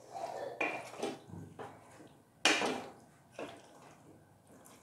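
Wooden spatula stirring chicken in coconut milk in a stainless steel pot, scraping and knocking against the pot in a few short strokes, the loudest knock about halfway through.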